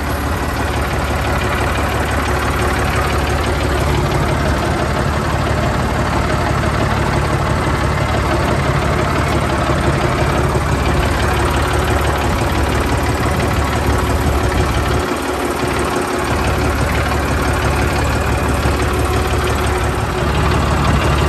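Tractor diesel engine running steadily, with a brief dip in its deep rumble about fifteen seconds in.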